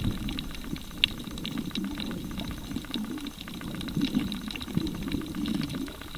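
Underwater reef ambience picked up by a camera underwater: an uneven, muffled low rumble of moving water with many scattered faint crackling clicks.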